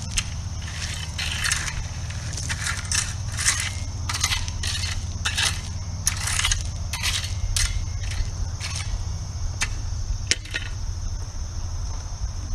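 Gravel crunching and scraping in a series of irregular short strokes as it is worked by hand with a tool, over a steady low hum.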